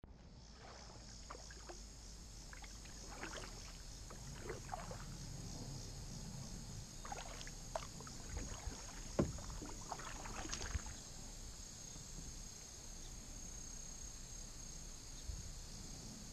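Canoe paddling: drips, small splashes and light knocks of a paddle working the water for the first ten seconds or so, the sharpest knock about nine seconds in, with a steady high-pitched insect chorus underneath throughout.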